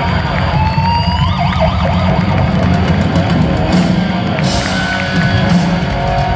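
Rock band playing live through a concert PA, with heavy drums and bass. About a second in, a high note slides up and then wavers.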